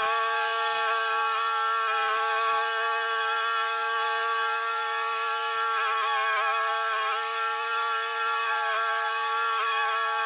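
Scag walk-behind commercial mower's engine running steadily as it cuts through thick, matted grass. It makes an even buzzing drone whose pitch wavers briefly about six seconds in.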